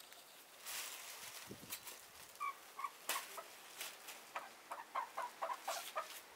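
Hen clucking in short notes: a couple about two and a half seconds in, then a quicker run of about four or five a second near the end, with faint scuffs and a knock while it is being handled.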